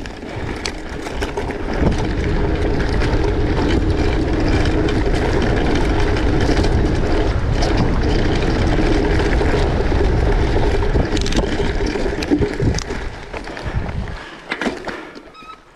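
A motor vehicle's engine running with a steady low rumble and a steady hum, building up over the first two seconds and dying away near the end, as if it passes close by.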